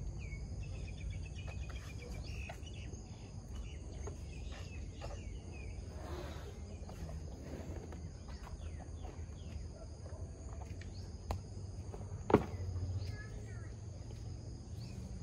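Rural outdoor ambience: insects keep up a steady high drone while birds chirp now and then over a low rumble. A single sharp knock sounds about twelve seconds in.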